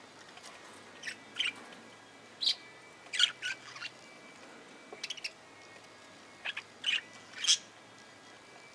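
Budgerigars chirping: short, sharp chirps and warbles from several birds in irregular clusters, with the loudest calls about 3 and 7.5 seconds in.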